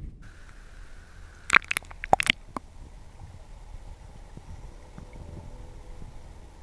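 River water heard underwater through a GoPro's sealed waterproof housing: a dull, muffled low wash, with a quick run of five or six sharp knocks about one and a half to two and a half seconds in.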